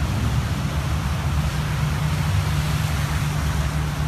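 Steady road traffic on a flooded street: car engines and tyres swishing through shallow floodwater, over a constant low hum.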